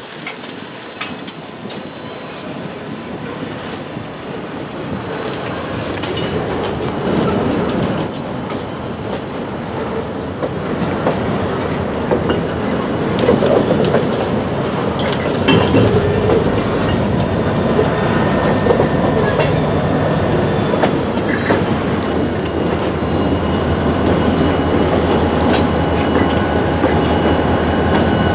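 Freight cars of a train shoved backward by Union Pacific GP40-2 diesel locomotives rolling slowly over a road grade crossing: wheels clacking over the crossing and rail joints, with thin wheel squeal, growing steadily louder. In the second half the low, steady run of the locomotive's diesel engine comes in underneath as it nears.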